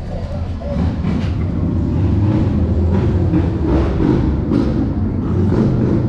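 A vehicle's low engine rumble in street traffic, growing louder over the first couple of seconds and then holding steady.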